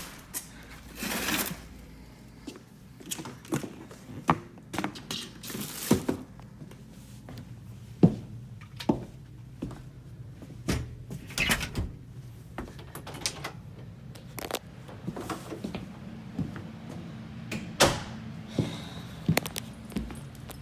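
2011 Goodman gas furnace running with a steady low hum, with many irregular clicks and knocks over it.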